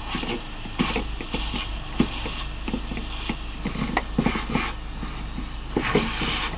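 Canister vacuum cleaner running, its nozzle sucking up dirt around an open fuel-tank sender hatch. A steady hum and hiss, with many irregular clicks and rattles at the nozzle.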